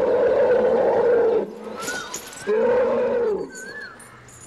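Asian elephant roaring twice: a long call that breaks off about a second and a half in, then a shorter one that rises and falls. Small bird chirps follow near the end.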